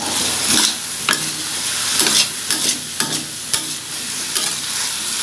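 Long metal spatula stirring and scraping ground meat and diced vegetables around a large stainless-steel pan over a steady frying sizzle, with a scrape about once a second.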